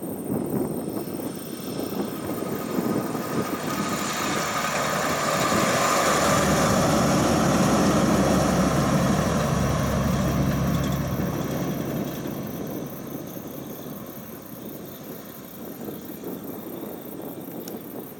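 Heavy logging truck loaded with logs, its Caterpillar diesel engine and tyres driving past: the sound builds as it approaches, is loudest about halfway through, then fades as it moves off.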